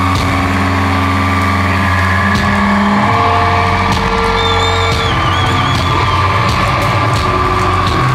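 Amplified, distorted electric guitars holding a loud sustained drone over a deep low hum. A wavering high feedback whine comes in about four seconds in and fades about two seconds later.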